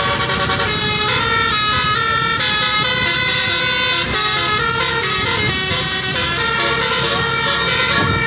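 Bus 'telolet' horn, a Basuri multi-tone musical air horn, playing a melody of held notes that change every half second or so, over the low rumble of the bus and traffic.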